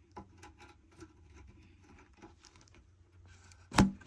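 Small scattered clicks and scrapes of a bidet seat's mounting fasteners being hand-threaded under a toilet, with one sharp knock near the end.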